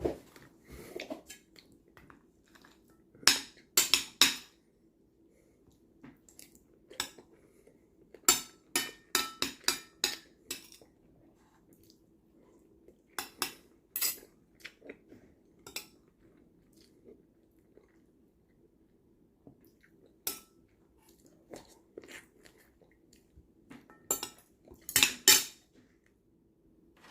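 Metal utensils clinking and knocking against dishes in irregular clusters of sharp strikes, over a faint steady low hum.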